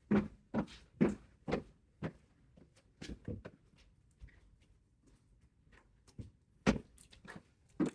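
Footsteps walking off at about two steps a second, then faint clicks and knocks of things being handled. Near the end comes a quick run of louder knocks, like cupboard or fridge doors being opened and shut.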